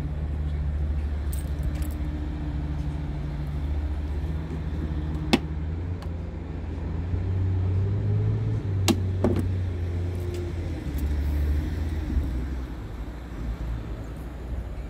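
Heavy truck diesel engine idling with a steady low hum, its pitch lifting briefly in the middle. Three sharp clicks come about five and nine seconds in.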